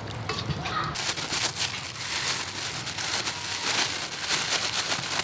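Thin disposable plastic gloves crinkling and rustling as they are pulled onto the hands, a steady crackle from about a second in.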